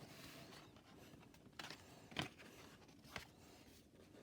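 Near silence with a few faint, short clicks and rustles of trading cards being handled and picked up.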